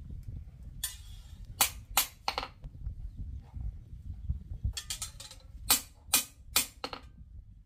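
About ten sharp strikes in short, uneven runs, roughly three a second within each run, over a steady low rumble.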